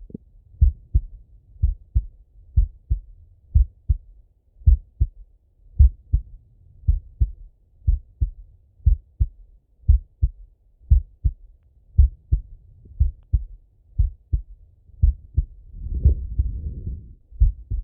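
A man's slow heartbeat heard through a stethoscope: steady double thumps (lub-dub), about one beat a second. A soft rushing sound rises and fades near the end.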